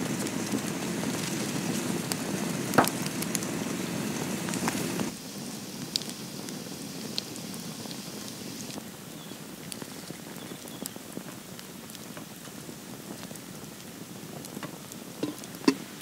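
Wood campfire crackling, with a steady hiss that drops away suddenly about five seconds in. After that, quieter crackling with sparse pops, and a few sharper knocks near the end.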